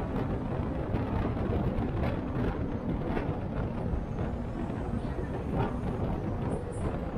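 City bus driving at speed, heard from inside: a steady rumble of engine and tyres on the road, with a few faint rattles.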